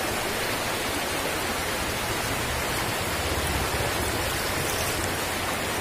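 River water rushing steadily past and between the pillars of a low concrete bridge, a constant rush.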